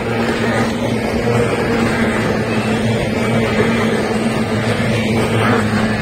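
Racing hydroplanes' two-stroke outboard engines running at full speed as the boats pass close by, a steady high engine drone.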